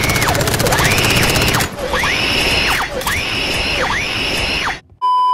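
Loud, harsh noise with a high wailing tone that rises, holds and falls four times, about once a second, ending in a short steady beep.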